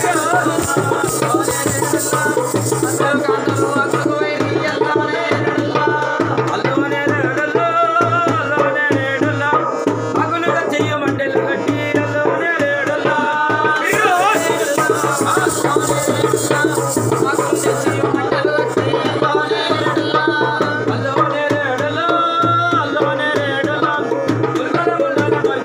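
A double-headed barrel drum (dholak-style) played by hand in a steady, busy rhythm, with voices singing a devotional song over it. A bright, high jingling comes in twice, at the start and again about halfway through.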